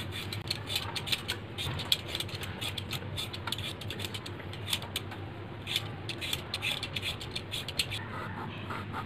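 Y-shaped vegetable peeler scraping the skin off a raw potato in quick, irregular strokes, over a low steady hum. Near the end a knife cuts into a peeled potato on a chopping board.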